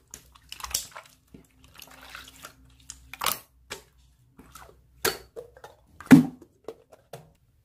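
Slime being squished and handled: irregular wet, sticky pops and clicks, the loudest three coming about a second apart in the second half.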